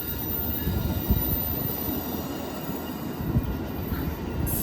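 Amtrak Coast Starlight passenger cars rolling past: a steady rumble of steel wheels on the rails, with a couple of sharper knocks.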